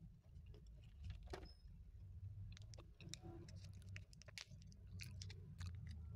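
A person chewing crunchy biscuit with the mouth closed, picked up close by the microphone: a quiet, irregular string of small crisp crunches and mouth clicks.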